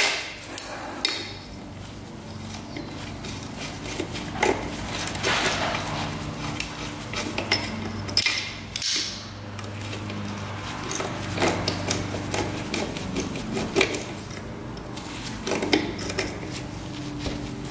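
Hand tools clinking and scraping on metal as a corroded, stripped bolt on a dirt bike is worked loose: irregular metallic taps and clicks.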